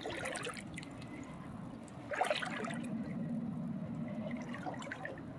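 Faint water trickling and lapping against a kayak hull, with a brief louder knock about two seconds in.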